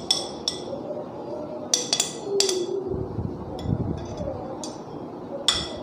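A metal spoon clinking against a bowl as spice powders are spooned in: a couple of light clinks at the start, three more around two seconds in, and one near the end, each with a short ring.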